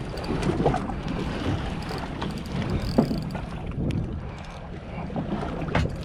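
Aboard a fishing skiff: a steady low rumble with wind buffeting the microphone, and a few sharp knocks, one about halfway through and one near the end.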